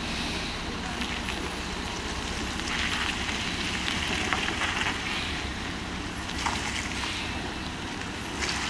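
Overloaded multi-axle lorry's diesel engine labouring at low speed up a steep hairpin, a steady low rumble with hissy noise that swells twice.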